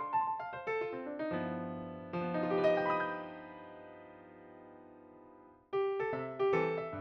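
Background music played on an electric piano: short plucky notes, then a chord held and fading for about four seconds before the quick notes start again near the end.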